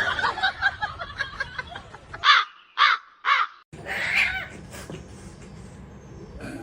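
A crow cawing: three loud caws in quick succession, about half a second apart, after a run of softer short calls.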